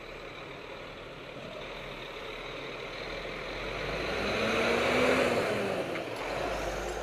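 Heavy truck driving nearby: engine and road noise swelling to a peak about five seconds in, then easing off.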